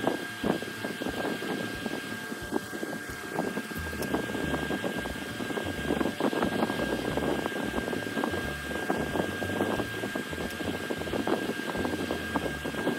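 Metal foil wrappers crinkling as they are peeled by hand off small half pans of watercolor paint: a dense, continuous run of small crackles.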